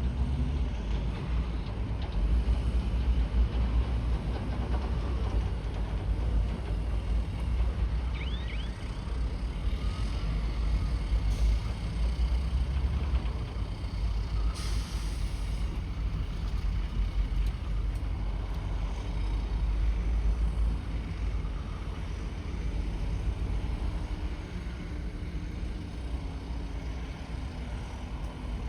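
Bulldozer's heavy diesel engine running steadily with a deep rumble while working, with a short hiss about halfway through.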